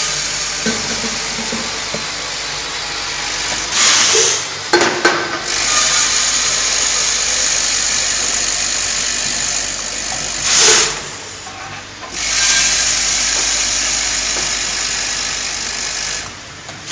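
Coffee-bean weighing and filling machine running with a steady noisy hiss. It gives two short, louder rushes, about four and eleven seconds in, and a couple of sharp clicks just after the first.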